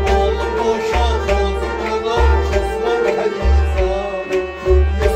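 Kashmiri Sufi folk song performed live: a man sings a held, ornamented line over a sustained harmonium, with deep drum beats about every second and a quarter.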